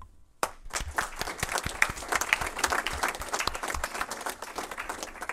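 Audience applauding: many hands clapping, starting about half a second in and tapering off near the end.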